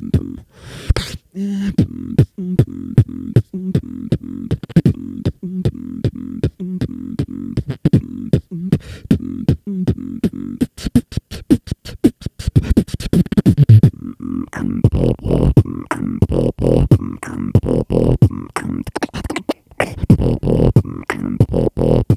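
Solo beatboxing into a handheld microphone: a sustained buzzing vibration bass line under a fast rhythm of sharp kick and snare clicks. About two thirds of the way in the pattern gets denser and fuller, with more high percussive sounds over the bass.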